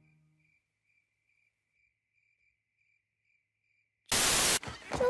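Faint crickets chirping in an even run of short chirps, about two or three a second. A little after four seconds a loud half-second burst of hiss cuts in, and a voice begins just before the end.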